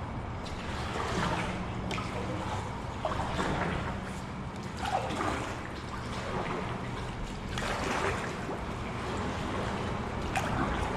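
Kayak paddle strokes in water, a soft swish every second or two with water trickling off the blade.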